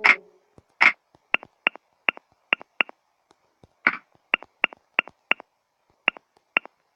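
Phone touchscreen keyboard clicking as a message is typed: about a dozen short, sharp ticks, irregular and in quick runs of a few at a time.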